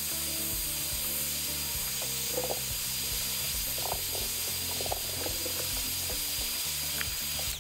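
Heat gun running steadily: an even rush of hot air with a thin high whine, switched off near the end. It is heating wood scorch pen ink to darken the stenciled design.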